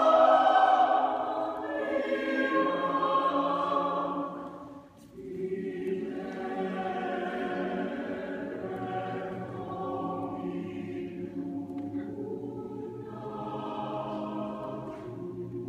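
Mixed choir of men's and women's voices singing long held chords in a large church. A loud passage fades out about four and a half seconds in, and after a brief pause the choir comes back in softly, swelling again near the end.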